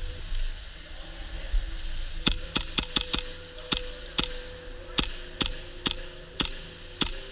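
Airsoft gunfire: about a dozen sharp single-shot snaps starting about two seconds in, quick at first, then spaced roughly half a second apart.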